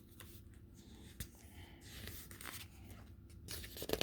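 Faint rustling and light taps of a paper catalog's pages being handled and turned.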